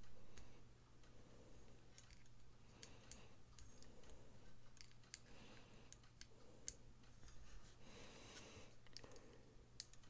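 Near silence with faint, scattered small clicks of metal parts being handled as the pivot screw is fitted into a folding knife.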